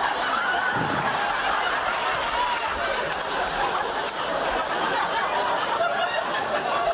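Studio audience laughing steadily, a dense mass of many voices.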